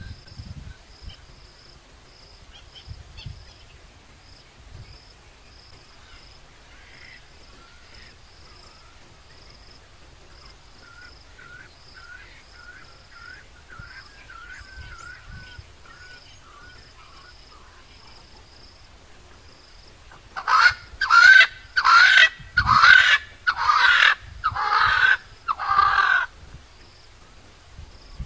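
A bird calls loudly in a run of about seven calls, each roughly half a second long and less than a second apart, starting about two-thirds of the way in.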